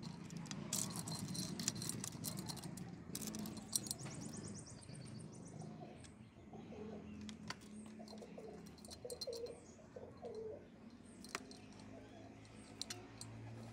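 Steel timing chain clinking and rattling as it is handled and fed onto the crankshaft sprocket of a motorcycle engine, loudest in the first few seconds. From about halfway through, a dove coos in repeated phrases in the background.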